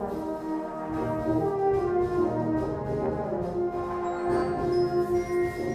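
Background music with held brass notes, French horn-like, over a soft orchestral bed.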